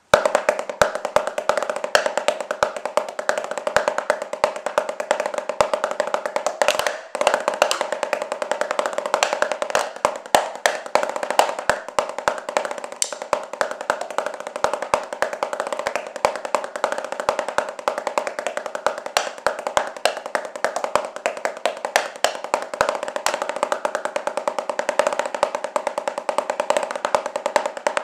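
Wooden drumsticks playing fast, continuous rudiment patterns on a rubber drum practice pad, a dense run of quick taps with accented strokes. The playing breaks off briefly about seven seconds in.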